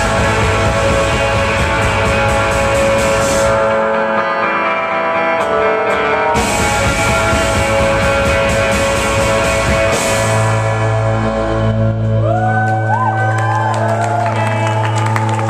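Live rock band playing, with jangly electric guitars over drums and cymbals. About ten seconds in the drums stop and the song rings out on a held low note, with guitar tones gliding up and down in pitch over it.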